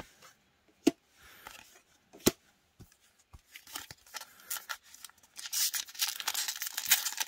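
Two sharp clicks, then from about five and a half seconds a foil Magic: The Gathering booster-pack wrapper crinkling and tearing as it is torn open by hand.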